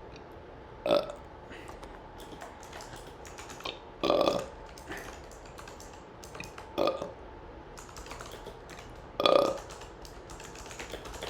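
A person burping repeatedly: four short burps a few seconds apart, with light computer-keyboard typing clicks between them.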